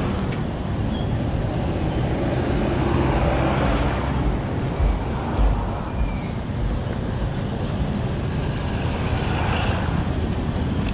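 City street traffic: the steady run of car and motorcycle engines moving along a wet road, a little louder about five seconds in.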